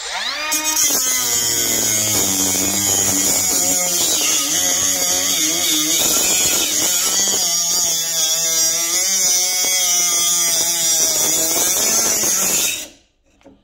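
Milwaukee M12 FUEL 3-inch compact cut-off tool's brushless motor spinning up and its abrasive wheel cutting into a steel bar. The pitch wavers as the cut loads the motor. It cuts out suddenly near the end, put down to friction on both sides of the deepening cut.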